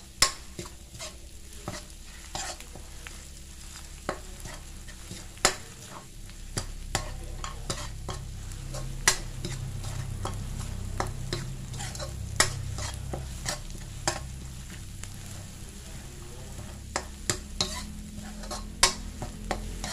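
Metal spatula scraping and knocking against a wok, in quick irregular strokes, as pounded chili, garlic and shallot paste is stir-fried in oil, with a light sizzle underneath.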